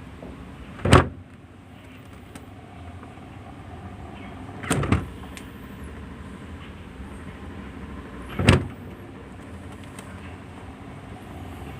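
LG refrigerator door being opened and shut: three clunks about four seconds apart, the middle one a quick double knock, over a steady low background noise.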